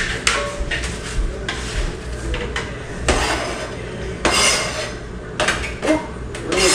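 A kitchen knife knocks on a cutting board as cooked chicken is chopped. A few seconds in, the knife scrapes the chicken pieces off the board into a mixing bowl, with the clink and scrape of a spoon stirring in the bowl.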